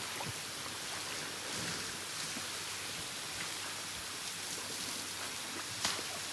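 Pool water splashing and pattering as it is scooped by hand over a bathing elephant's head, a steady rain-like patter, with one sharp click near the end.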